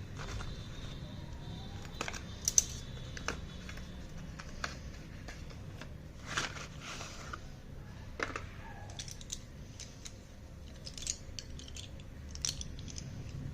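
Hands unboxing a parcel of slate pencils: scattered light clicks and taps with one sharp click and a brief rustle of packaging, over a low background hum.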